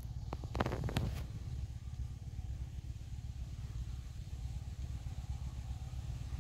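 Low, steady engine rumble from a train standing some way off, with a few sharp clicks or knocks in the first second.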